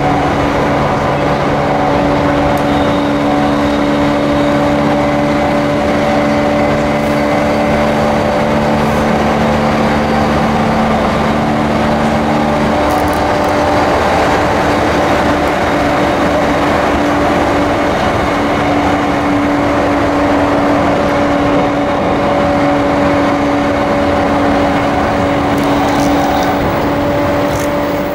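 JR East E235 series train with Mitsubishi SiC-VVVF inverter running at speed between stations, heard from inside the car: a steady rumble of wheels on rail with steady electric motor tones. A group of low tones cuts off about 13 seconds in while a higher tone carries on.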